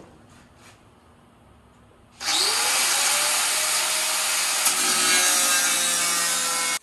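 Angle grinder with a cut-off wheel starting about two seconds in, its motor whining up to speed, then cutting through the old steel along the bottom of a truck door: a steady loud whine with a bright hiss that stops abruptly.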